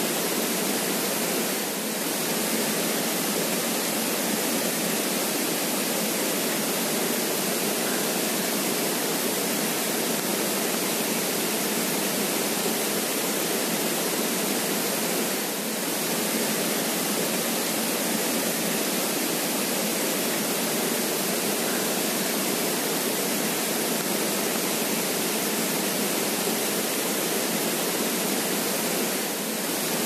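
Creek water flowing: a steady, even rush that dips briefly twice.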